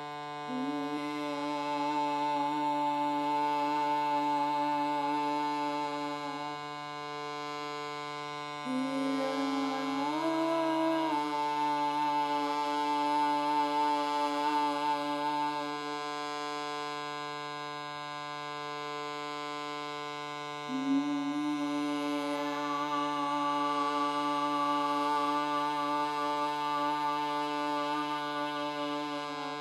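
Shruti box sounding a steady drone in the key of C, with a voice singing long held notes over it in three phrases; in the middle phrase the voice steps up in pitch.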